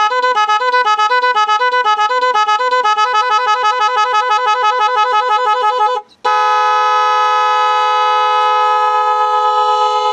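Electric pressure horn sounding a two-tone warble that alternates between two pitches, then switches to a faster warble about three seconds in. After a brief break about six seconds in, it sounds one long, steady two-note blast.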